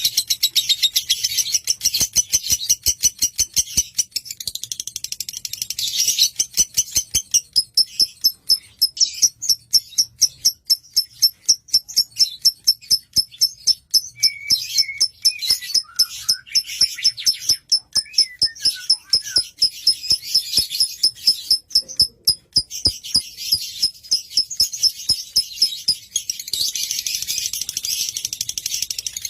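Lovebird chirping: a long run of sharp, high-pitched notes repeated about four a second through the middle, with a few lower sliding calls mixed in.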